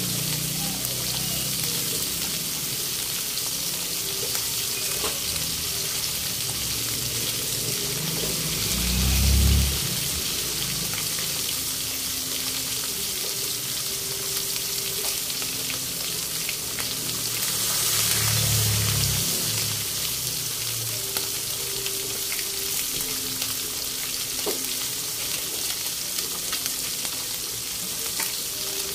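Four whole round scad (galunggong) frying in hot oil in a wok: a steady sizzle and crackle. Two low rumbles swell and fade, the louder about a third of the way in and another a little past halfway.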